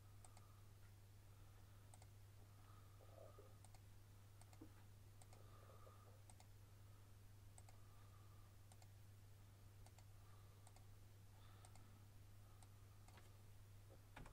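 Near silence with faint computer mouse clicks, irregular, about one a second, over a low steady hum.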